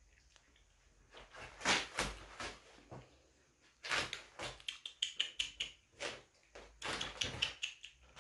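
Kittens scrambling in and around a nylon pop-up play tunnel: irregular rustling, scraping and light knocks, thickest in the second half.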